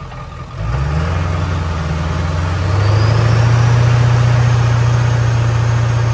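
Mud-bog mega truck's engine revving up hard: it jumps from a low idle to high throttle about a second in and climbs again a couple of seconds later, then holds a loud, steady high-rev note as the paddle-lug tractor tires churn through deep mud.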